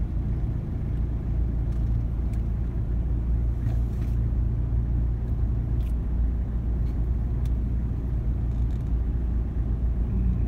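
Steady low rumble of a moving vehicle's engine and road noise from the vehicle the recording is made on, with a few faint ticks.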